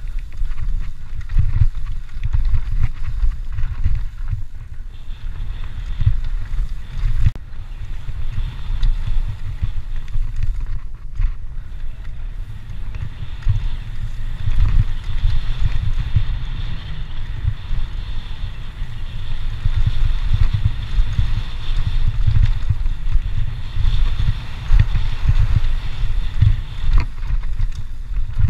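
Wind buffeting the microphone of a mountain bike's on-board camera, over the rumble and jolts of the bike running fast down a dirt forest singletrack.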